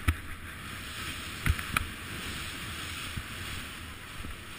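Skis hissing through deep powder snow, with wind rushing over the body-worn camera's microphone, and a few sharp knocks: one right at the start and two more about a second and a half in.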